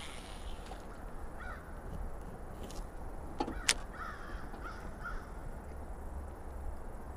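Crows cawing faintly: a couple of short caws about a second and a half in, then a quick run of four or five caws near the middle. A single sharp click sounds just before that run.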